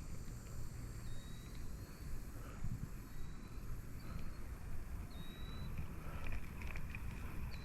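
Outdoor ambience: a steady low rumble on the microphone, with faint, short, high chirps a few times.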